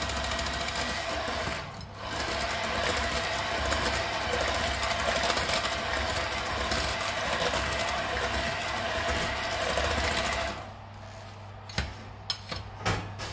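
Electric hand mixer's motor running steadily as its beaters whip cheesecake filling in a ceramic bowl. It dips briefly about two seconds in and switches off near the end, followed by a few sharp knocks.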